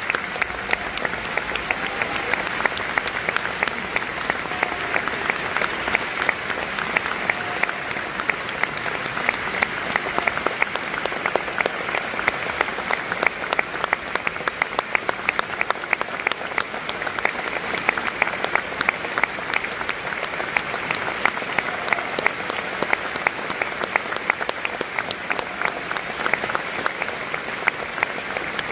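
Audience applauding: a dense, even stream of hand claps that holds steady throughout.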